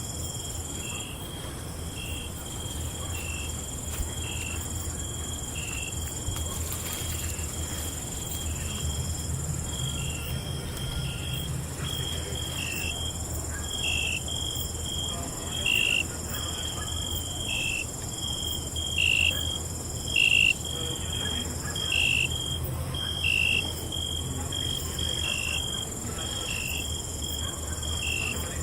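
Night insects, crickets, chirping: a steady high trill with a slightly lower chirp repeating about once a second, getting louder in the second half. A low steady rumble sits beneath.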